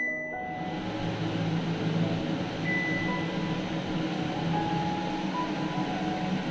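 Faber kitchen chimney switched on with a short beep, its extractor fan coming up to speed within about a second and then running steadily with a low hum. A second beep from its touch panel comes about two and a half seconds in.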